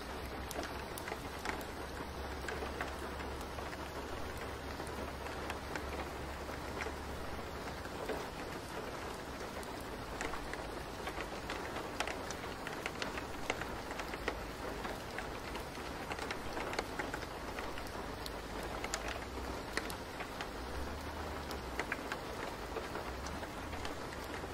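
Steady rain falling: a soft even hiss with scattered ticks of single drops, over a low steady rumble.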